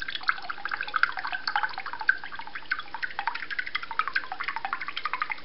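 Soy sauce dripping and trickling from a bottle's narrow flip-top spout into a small plastic cup, a rapid, irregular string of small splashes.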